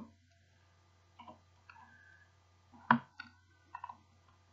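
A low steady hum with a few faint ticks and one sharp click about three seconds in.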